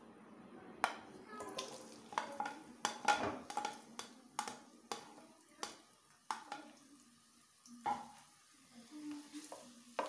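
Sliced onions frying in hot oil in a non-stick kadhai (wok), with a faint sizzle. A spatula knocks and scrapes against the pan in irregular sharp clacks as the onions are stirred, the start of browning them.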